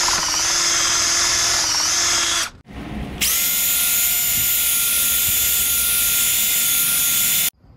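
Power drill spinning a stainless wire brush inside a boat's steering tube to scour out grit. It runs in two steady bursts, the first about two and a half seconds long, then a short pause, then a second of about four seconds that cuts off suddenly near the end.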